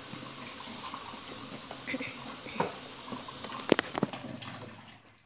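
Warm water running steadily into a cup and then fading off near the end, with two sharp knocks shortly before it stops.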